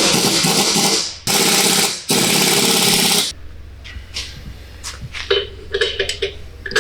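A power tool run in three bursts, tightening the fasteners of a freshly refitted front strut, then light metallic clicks and clinks of hand tools and parts.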